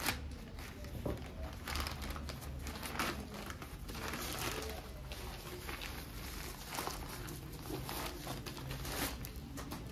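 Scissors snip into a plastic courier mailer bag, then hands tear it open and handle the bubble wrap inside. The plastic crinkles and rustles irregularly.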